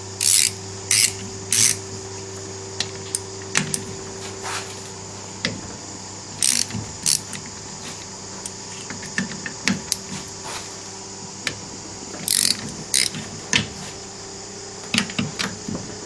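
Hand ratchet wrench clicking as it is swung in short strokes, three quick strokes at a time with pauses between, and small metal clinks in between. It is undoing fasteners on a VW Superbug engine being taken apart.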